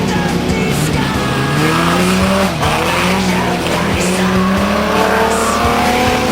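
Several Stock Omega race cars running hard, their engine notes overlapping; the pitch climbs as they accelerate, drops sharply about two and a half seconds in, then climbs again.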